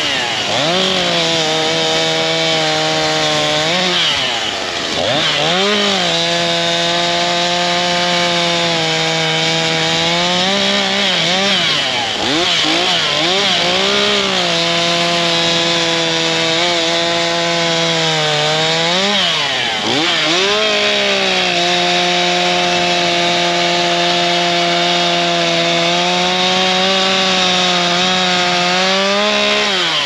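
STIHL MS251 two-stroke chainsaw running at high throttle while bucking a dead, barkless tree trunk into pieces. The engine note holds steady for long stretches, dips in pitch and picks back up around 4, 11 to 13 and 19 to 20 seconds in, and falls away as the throttle is released right at the end.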